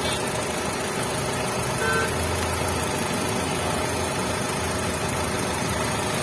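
BMW X1 engine idling steadily, with both engine mounts freshly replaced; the mechanic says the new mounts have cured the vibration and noise the engine was making.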